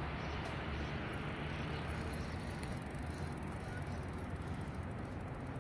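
Steady outdoor street ambience: an even, low rumbling noise with no distinct events.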